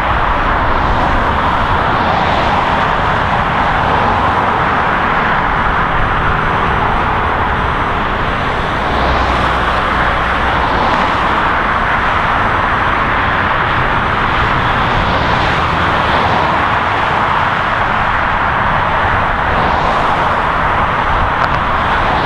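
Steady roar of dense highway traffic, a continuous wash of tyre and engine noise that swells slightly as individual vehicles pass close by.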